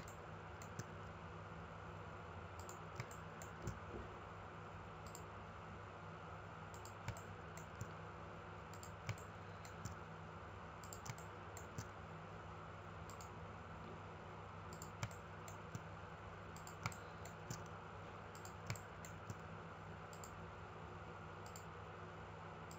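Computer mouse button clicks, single and irregularly spaced, about sixteen over the stretch, over a faint steady electrical hum and hiss.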